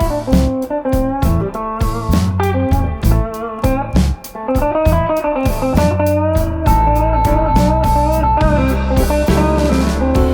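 Background music: electric guitar playing a bluesy melody over bass.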